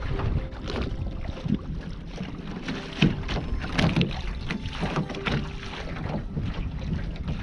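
Water slapping and splashing irregularly against the hull of a small wooden sailing dinghy under way, over a steady low rumble of wind on the microphone.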